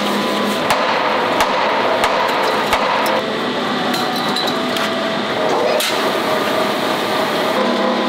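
Foundry sand mixer running steadily with a low hum while moulding sand pours out of it. Over it come four sharp knocks, evenly spaced about two thirds of a second apart in the first three seconds, and one more a little before six seconds.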